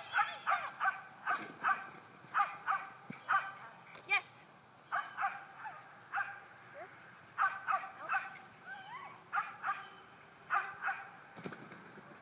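Small dog barking repeatedly as it runs, in quick bursts of two to four high, sharp barks with short pauses between.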